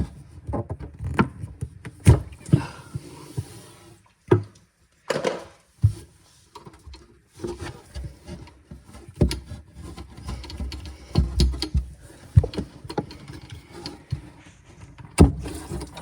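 Irregular clicks, knocks and bumps of hand tools and fittings being handled and set down, with short pauses between them and a sharp knock near the end.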